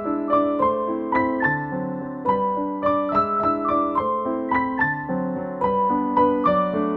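Background piano music: a melody of struck single notes, a new one every third to half second, over lower held chords.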